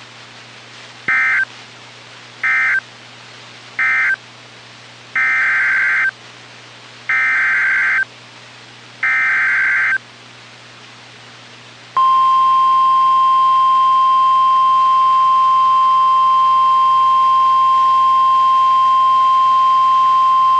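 NOAA Weather Radio EAS/SAME digital signals: three short end-of-message data bursts, then three longer SAME header data bursts about two seconds apart. About twelve seconds in, the steady 1050 Hz warning alarm tone begins and holds to the end, announcing a new severe thunderstorm warning.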